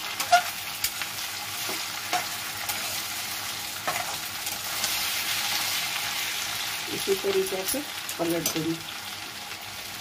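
Sliced potatoes sizzling in hot oil in a metal kadhai over a high gas flame. A metal spatula scrapes and clicks against the pan as the potatoes are turned over.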